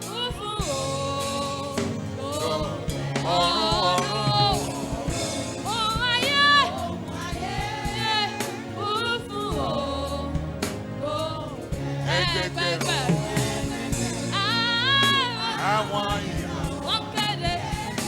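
Gospel worship music: singing with long wavering held notes over instrumental accompaniment.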